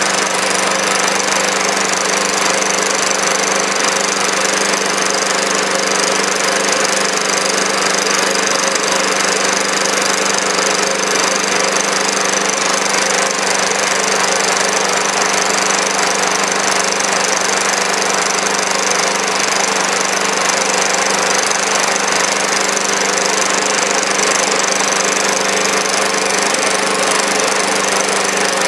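Small engine in standard trim running steadily at a set speed, driving an electrical load of about 350 watts, with no change in pace.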